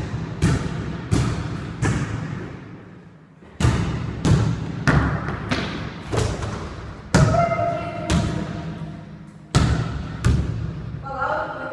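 A basketball being dribbled on a hard floor: steady bounces about every two-thirds of a second, each followed by a long echo, with a couple of short pauses between runs.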